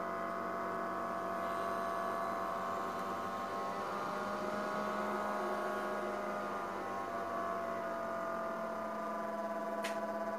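12-volt brushless DC cooling fan running under PWM power: a steady hum of several tones that drift slightly in pitch as the feedback controller adjusts the fan's power to hold a constant airflow.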